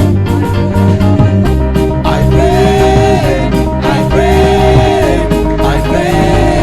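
Gospel worship music with a band: a steady bass and drum bed under a sustained melody that swells up and falls back in three repeated phrases.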